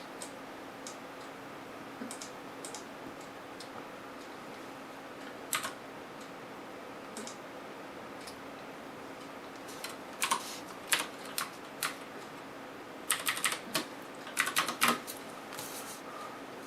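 Computer keyboard and clicking: scattered single keystrokes, then two quick flurries of typing in the second half.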